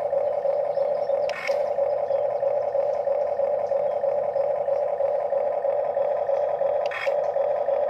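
Huina radio-controlled toy excavator's small electric motors running with a steady whine, with a sharp click about a second and a half in and another near the end.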